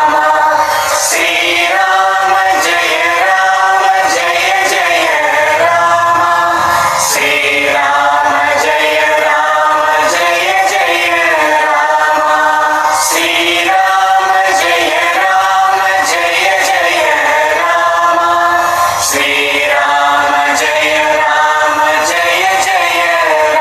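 A chorus singing a devotional Hindu bhajan in long, sliding melodic lines, with a bright percussive stroke about every six seconds.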